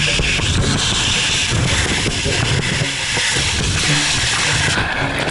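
Loud rushing and hissing of water and air during a ride down an enclosed water slide, with a rough low rumble under it. The sharpest part of the hiss drops away shortly before the end.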